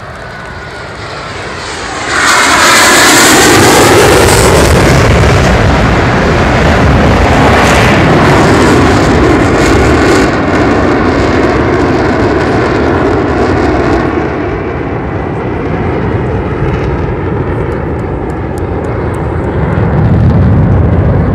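Blue Angels F/A-18 Hornet jets passing low overhead. The jet engine noise builds, jumps to full loudness about two seconds in with a sweep falling in pitch, and stays loud for several seconds. It then eases and rises again near the end.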